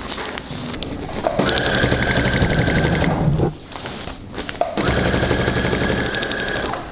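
Electric sewing machine stitching fabric in two runs of fast, even stitches with a short pause between them.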